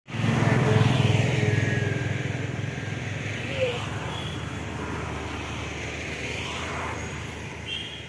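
Engine running, loudest about a second in and then slowly fading away.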